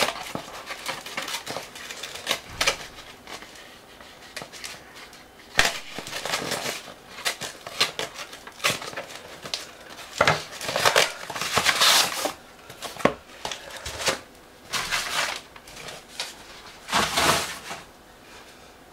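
A cardboard parcel is slit open with a Real Steel Sea Eagle folding knife, and its paper and cardboard wrapping is torn and crumpled back. The sound comes as irregular scraping, rustling and tearing bursts, loudest a little past the middle and again near the end.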